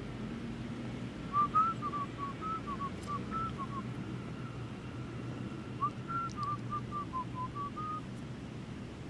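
A person whistling a little tune in two short phrases of quick, hopping notes, with a pause between them.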